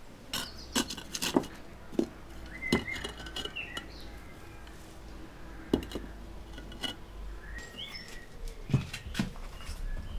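Irregular sharp knocks and clicks of kiln equipment being handled, about eight in ten seconds, with small birds chirping now and then in the background.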